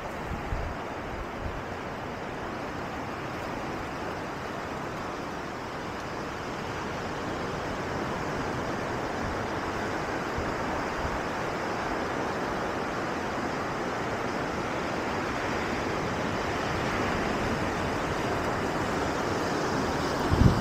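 Steady rushing of sea surf, growing gradually louder.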